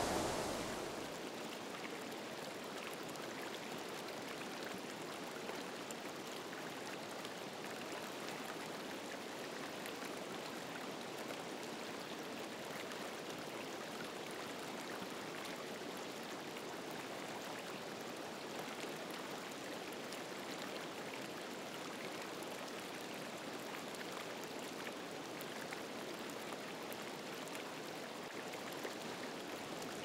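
Steady, gentle rushing of a partly frozen stream flowing between ice and snowbanks. A louder rush at the very start dies away within the first second or two.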